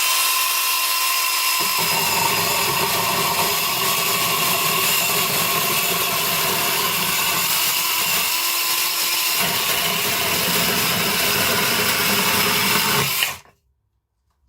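21-volt cordless mini chainsaw running with a steady whine, its chain cutting through a decking board: the rasp of the chain in the wood joins about two seconds in, lets up for about a second past the middle, and the saw stops suddenly near the end.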